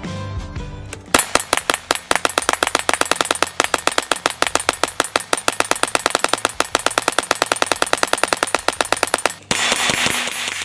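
Tippmann hand-cranked .22 LR Gatling gun firing a long, rapid string of evenly spaced shots, several a second, for about eight seconds. The shots stop abruptly and are followed by a short burst of noise near the end.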